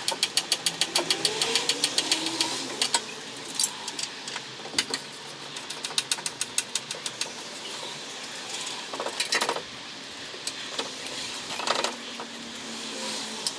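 Hand tools working on a car's front end: a fast, even run of ratcheting clicks for the first few seconds, then scattered metal clinks and knocks, with two louder scraping bursts later on.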